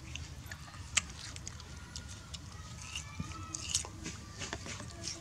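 Baby macaque chewing and biting watermelon: scattered short wet clicks, the sharpest about a second in.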